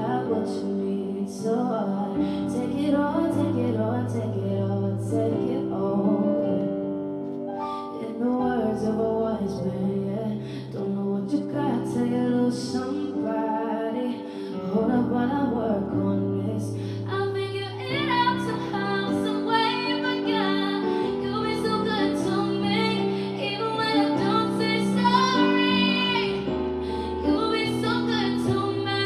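Live R&B performance: a woman singing over sustained keyboard chords, the upper part growing busier in the second half.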